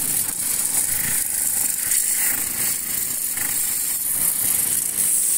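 Pressure washer jet spraying onto a tractor's metal bodywork: a steady, loud hiss of high-pressure water.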